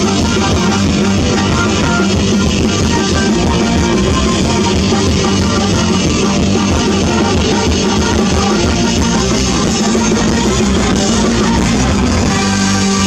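Live rock band playing loudly over an outdoor PA, electric guitar and drum kit driving a steady, unbroken wall of sound.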